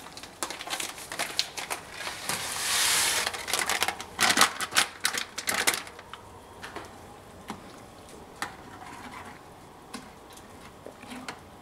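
Dry yellow rice grains poured from a packet into boiling water in a stainless steel saucepan, rattling and pattering with a brief hiss, then a spoon stirring and tapping against the pan in sparser clicks over the second half.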